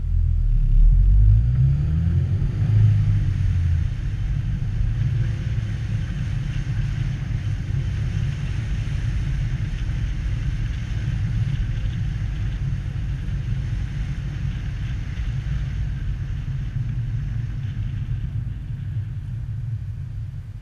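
Car pulling away from a stop, its engine note rising in steps over the first few seconds as it accelerates. It then settles into a steady low rumble of engine, tyres and wind while cruising, and eases off near the end.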